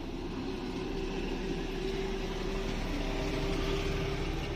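A steady motor hum with a hiss over it.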